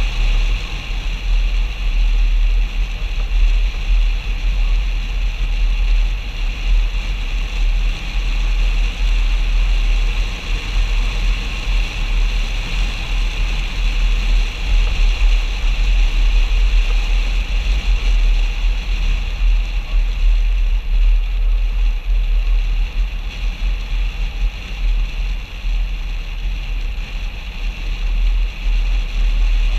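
Steady wind rush and low rumble on the microphone as a Mercedes-Benz ML350 BlueTec SUV drives along a narrow paved road, with the vehicle's road and engine noise mixed in.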